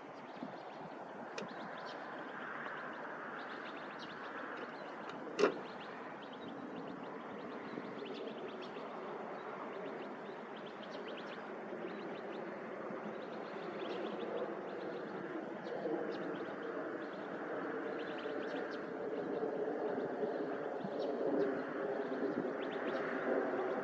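Outdoor dawn ambience: scattered small bird chirps over a steady background noise that grows slightly louder toward the end. A single sharp click about five seconds in.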